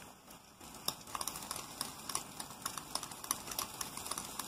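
A metal fork beating egg yolks and grated Parmesan in a glass bowl, its tines clicking irregularly against the glass from about a second in.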